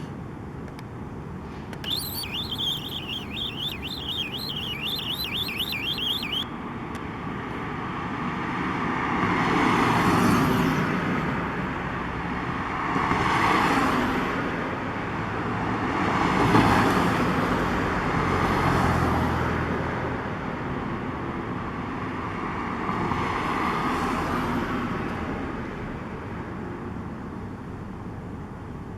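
Street traffic: cars passing one after another, each swelling and fading, about five times. A couple of seconds in, a rapid, high, regular chirping runs for about four seconds and stops abruptly.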